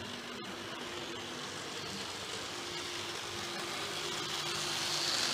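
Model Class 50 diesel locomotive running on a model railway, its electric motor humming and its wheels rolling on the rails, growing louder as it approaches and passes close near the end. A single sharp click about half a second in.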